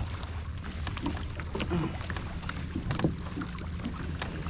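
Small waves lapping against a plastic fishing kayak's hull over a low steady rumble, with scattered small clicks and knocks.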